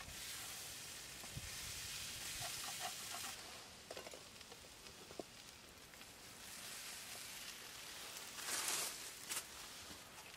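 Faint sizzling of chicken and peppers in a frying pan just lifted off a small wood-burning folding stove, fading after about three seconds, with a few faint crackles. Near the end a brief, louder rustle of dry leaves as the pan is set down on the ground.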